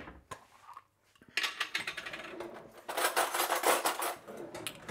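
Cutlery scraping and clinking inside a jar as wholegrain mustard is scooped out. A sharp knock at the start, then a dense run of quick scrapes from about a second and a half in.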